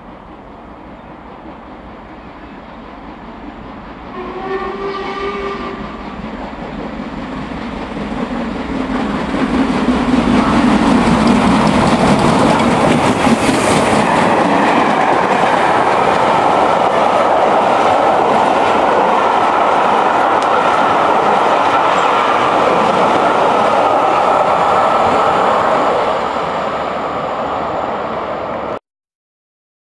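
Two LMS Stanier Class 5 'Black Five' 4-6-0 steam locomotives double-heading a passenger train approach. A steam whistle sounds once for about a second, around four seconds in. The engines and coaches then pass close by, loud and steady for over fifteen seconds, easing slightly before the sound cuts off suddenly near the end.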